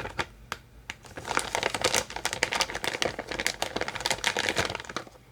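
Crinkly packaging being handled and unwrapped by hand: a dense run of sharp crackles starting about a second in and stopping shortly before the end.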